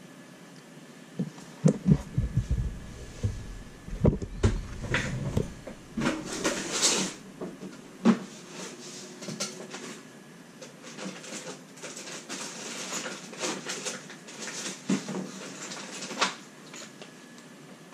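Someone rummaging at a workbench: a run of irregular knocks, thumps and rattles, heaviest in the first few seconds, then lighter clicks and rustling.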